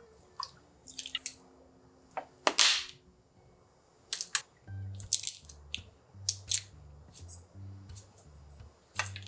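Kitchen prep sounds: bottle caps clicking, bottles knocking on the counter and liquid seasonings pouring over sliced pork belly in a stainless steel bowl, as a series of sharp clicks and short splashy bursts. Faint background music with a bass line comes in about halfway through.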